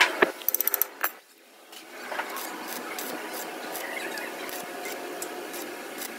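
A quick clatter of metal clicks in the first second as a spring-loaded welding earth clamp is clipped onto a steel steering shaft. A steady low hiss follows.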